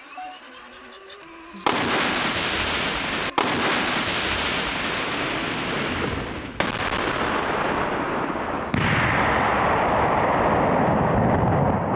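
Controlled demolition blasts of explosive ordnance: four explosions in succession, each starting abruptly and followed by a long, loud rumble.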